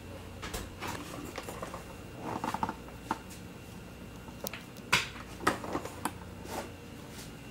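Scattered clicks and knocks as an oven rack is pushed in and the oven door is shut, with one sharper knock about five seconds in.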